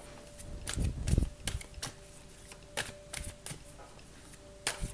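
Deck of tarot cards being shuffled by hand, a string of quick, irregular card snaps and clicks.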